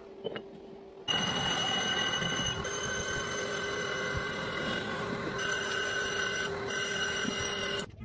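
A power tool's electric motor runs steadily with a high whine, starting abruptly about a second in and cutting off near the end.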